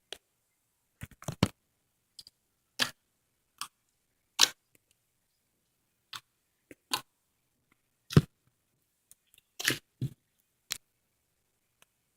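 Crunchy slime being worked by hand, giving a string of short, sharp pops and crackles at irregular intervals.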